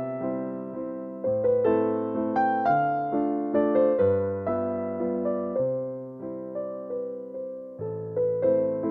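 Background music: a gentle piano piece, single notes and chords struck at a steady pace over a repeating bass line.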